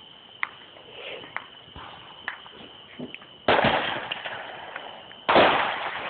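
Fireworks going off: a few small sharp pops, then two loud bangs nearly two seconds apart, each trailing off.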